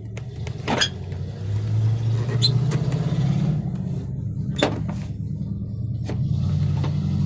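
A car engine running with a steady low rumble that slowly grows louder, and four sharp clicks of parts being handled.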